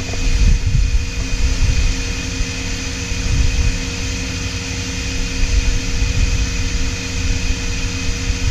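Small electric pressure washer running steadily while spraying, its motor and pump giving a constant hum with a thin steady whine over a hiss.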